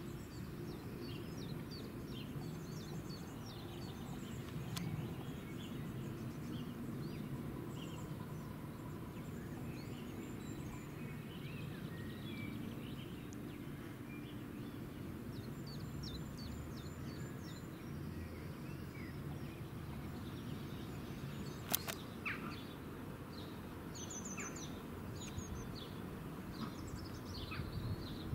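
Outdoor ambience: birds chirping here and there over a steady low background rumble, with one sharp click about three-quarters of the way through.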